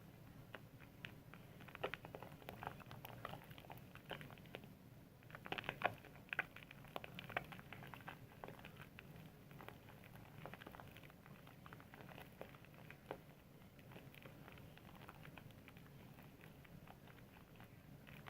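Soap being lathered with water: faint, irregular wet crackling and squishing of suds, a little louder for a couple of seconds about six seconds in.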